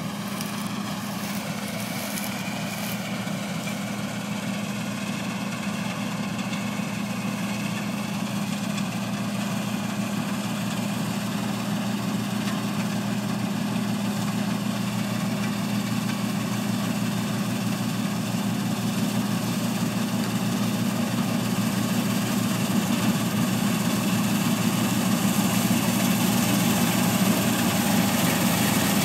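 New Holland TC5070 combine harvester running steadily, a low engine hum with machinery noise, growing gradually louder.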